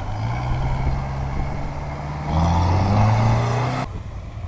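Off-road buggy's engine working under load on a slope, its pitch creeping upward. About two seconds in it revs louder and higher, then cuts off suddenly near the end.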